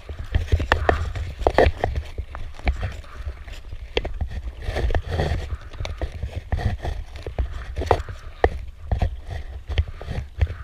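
Paddling strokes from an inflatable kayak: the paddle blades dip and splash in the water, with irregular sharp clicks and knocks, over a steady low wind rumble on the microphone.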